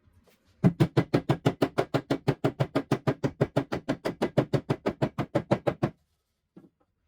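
A rapid, even series of sharp knocks, about six a second, starting just under a second in and stopping abruptly about five seconds later.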